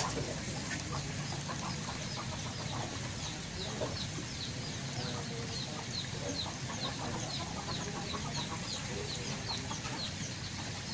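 Short high chirps from an animal, each falling in pitch, repeating steadily about three times a second over a low steady hum.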